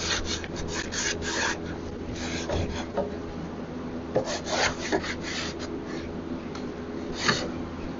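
Hand scrubbing of a wooden drawer with a wet sponge: quick rubbing strokes in the first second and a half, another run of strokes around the middle, and a single stroke near the end, over a steady low hum.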